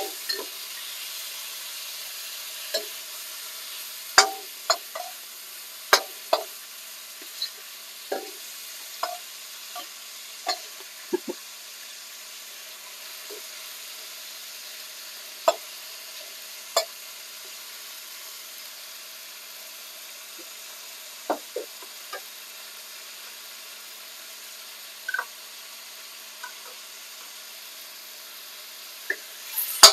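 Beef pieces searing in a hot steel wok, a steady sizzle, with the metal wok ladle clinking and scraping against the pan as the pieces are turned. The clinks come often in the first ten seconds or so, then only now and then.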